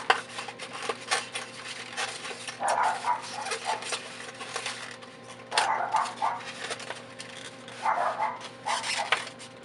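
Clicking and rustling of packaging and twist-tied wires being worked loose by hand, with three louder rustling bursts a few seconds apart, over a faint steady electrical hum.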